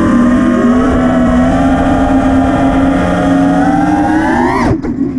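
FPV quadcopter's brushless motors and propellers whining at a fairly steady pitch. About four and a half seconds in, the pitch climbs sharply and then drops away suddenly as the motors spool down.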